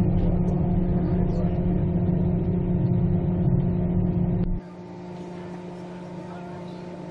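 Steady running noise inside a Queensland Rail Tilt Train passenger car in motion: a low rumble with a steady hum. About two-thirds in, the sound drops suddenly in level and the low rumble falls away, leaving a quieter hum.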